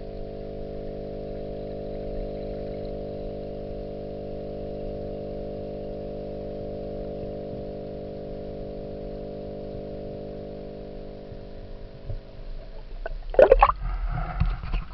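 Steady hum with several even tones, heard underwater through an action camera's waterproof housing. Near the end, loud irregular splashing and knocking as the camera is brought up out of the water.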